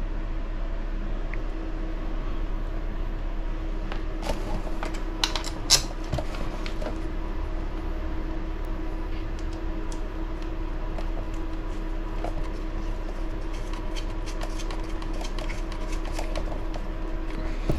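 Steady low background hum, with a few light clicks of small parts and tools being handled about four to six seconds in.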